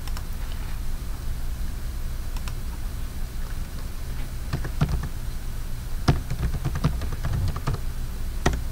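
Typing on a computer keyboard: a run of key clicks from about halfway through as a phone number is keyed in, over a steady low hum.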